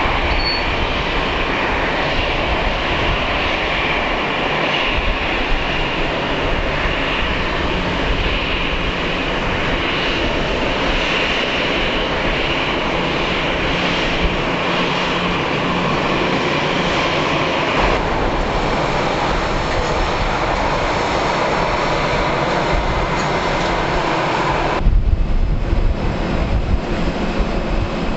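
Jet engines of a Swiss Airbus A320-family airliner running at taxi power: a steady whine over a rushing engine noise. About 25 seconds in, the whine cuts away abruptly and a louder low rumble takes over.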